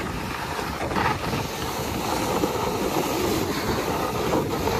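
Steady rushing noise of a steerable sled sliding down a snow slope, with wind buffeting the microphone.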